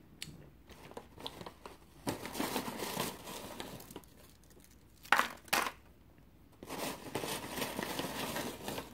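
Plastic snack bag crinkling as a hand rummages inside it, in two stretches, with two short sharp crackles between them.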